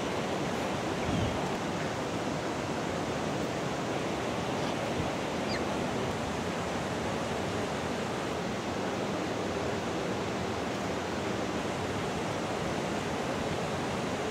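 Steady rushing water, an even hiss without breaks or change.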